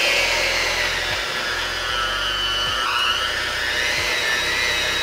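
Cuisinart electric hand mixer running steadily, its beaters whipping butter, sugar, eggs and vanilla in a ceramic bowl. The motor whine steps slightly up in pitch about halfway through.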